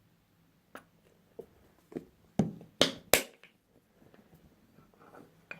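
A shampoo bottle handled and squeezed over a bowl: a few light knocks and clicks, then three louder short squirting bursts about half a second apart, followed by faint rustling.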